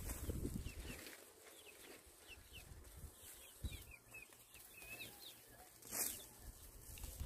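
Faint chirping of small birds, short wavering calls repeated throughout, with a brief rustle about six seconds in.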